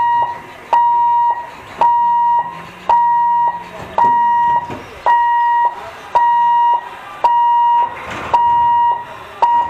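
Level-crossing warning buzzer at a railway gate, a steady electronic beep of one pitch, about half a second long, repeating roughly once a second: the alarm that sounds while the barriers are closed for an approaching train.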